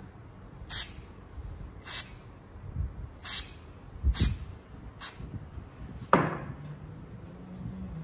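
Aerosol spray grease hissing in about six short bursts, roughly a second apart, as it is sprayed into the hollow handle of a badminton racket. The grease is meant to silence a ticking rattle from the cracked wooden core and glue inside the handle.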